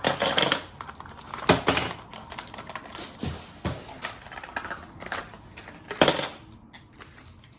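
Rummaging through a shipping box of locksmith stock: packaging rustling and crinkling, with small metal pieces such as key blanks clinking and knocking together now and then, the sharpest knocks about a second and a half in and about six seconds in.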